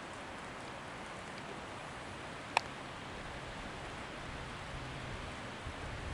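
Steady, even outdoor hiss with one sharp click about two and a half seconds in.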